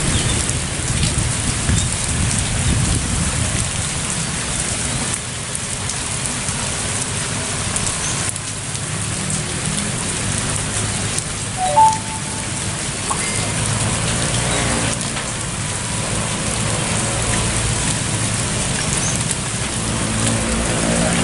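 Heavy rain falling steadily, with vehicle engines from motorcycles and cars at a railway level crossing running underneath and growing louder in the second half. A single short beep stands out about twelve seconds in.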